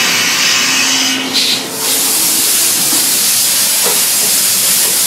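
CNC milling machine cutting a steel plate under flood coolant: a loud, steady hiss of coolant spray and cutting, with a brief dip about a second and a half in.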